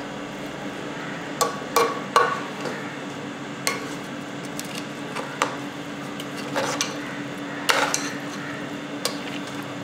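A metal spoon clinks and scrapes against the side of an aluminium cooking pot while biryani rice is turned over from the bottom, giving about ten irregular knocks. A steady low hum runs underneath.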